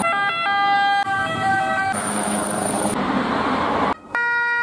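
Emergency-vehicle siren tones in short spliced snippets, stepping between pitches, with road traffic noise between them and abrupt cuts.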